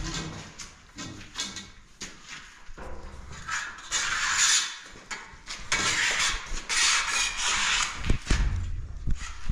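A long wooden straightedge scraping over a cinder-block wall being plastered, in two long strokes about four and six seconds in, followed by a few knocks near the end.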